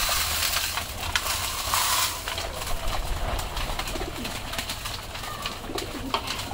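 Flock of domestic pigeons at a feeding tray: grain poured onto the tray with a rushing patter in the first two seconds, then many small pecking clicks, with pigeons cooing and wings flapping among them.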